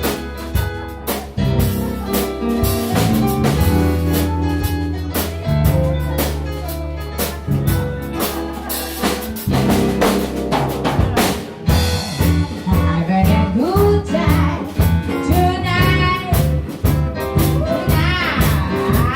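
A band playing an upbeat song with a drum kit keeping a regular beat under a bass line. About twelve seconds in, a high lead melody with a wavering vibrato comes in over the band.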